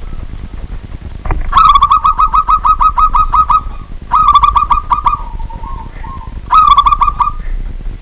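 Zebra dove (perkutut) singing: three bursts of rapid staccato cooing notes, the first about two seconds long at roughly six notes a second, with softer, lower coos between the bursts. A single click comes just before the first burst.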